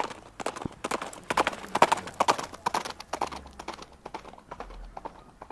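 Groenendael (Belgian Shepherd) dog making a rapid, irregular string of short, odd sounds, some with a pitch, loudest in the middle and dying away near the end.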